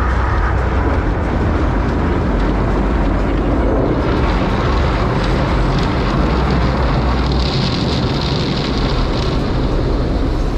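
Automatic car wash running over a car, heard from inside the cabin: a loud, steady rushing with a deep rumble, and a higher hiss that swells for a couple of seconds near the end.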